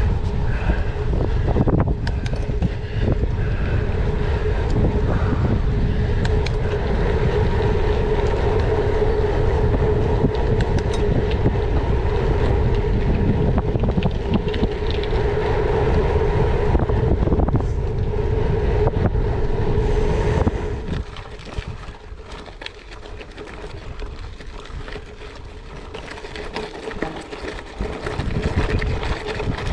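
Wind rushing over the microphone of a camera riding on a gravel bike, with a steady hum under it. It drops off sharply about twenty seconds in and stays quieter after that.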